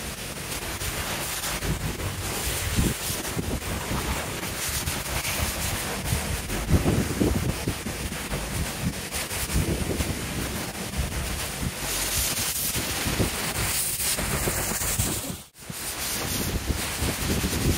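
Pressure washer lance spraying a high-pressure water jet onto concrete paving slabs: a steady hiss and splatter. It drops out for a moment near the end, then carries on.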